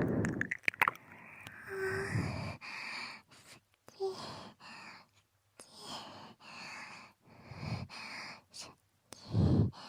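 Close-up binaural ear-licking: wet licking and mouth clicks right at the ear, with breaths and soft sighs between them. The loudest is a breathy burst near the end.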